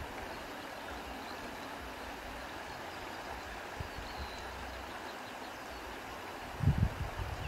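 Outdoor riverside ambience: a steady, even hiss of wind, with wind buffeting the microphone in low rumbles, the strongest a little before the end.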